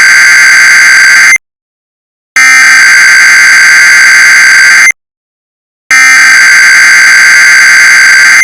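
Emergency Alert System SAME header: loud bursts of buzzing two-tone digital data. The first burst ends about a second in, and two more identical bursts of about two and a half seconds follow, each after a second of silence. The three repeats carry the coded alert (event type and county list) ahead of the attention tone.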